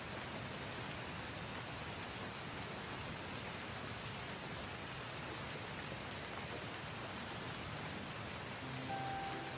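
Steady rain falling, an even hiss with no breaks. Soft music comes in near the end.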